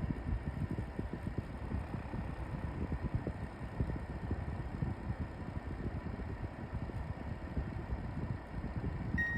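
LG AeroTower fan-purifier running with a low, uneven vibrating rumble: the abnormal vibration noise that the owner reports at fan speeds 5 to 7, which persists with a new original filter and no foreign object inside. A short high beep sounds near the end.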